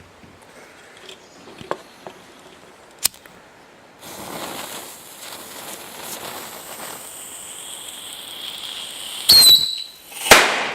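A bottle rocket's fuse hisses for about five seconds, then the rocket launches with a short high-pitched whoosh, and about a second later it pops with one sharp bang.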